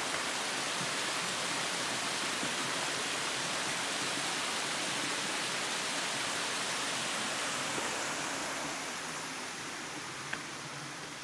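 Small waterfall on a forest stream, water rushing steadily over rock; it dies down over the last few seconds.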